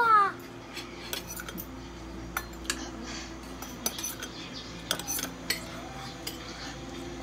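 Spoons and forks clinking and scraping against bowls and plates during a meal, in scattered irregular clinks.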